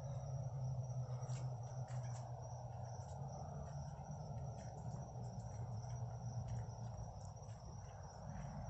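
Crickets chirping in a steady high trill, over a low steady hum, with a few faint clicks.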